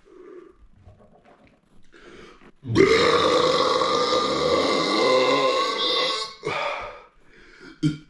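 A man's long, loud burp lasting over three seconds, starting a little under three seconds in, then a shorter burp and a brief one near the end. The gas comes from fast-drunk carbonated soda.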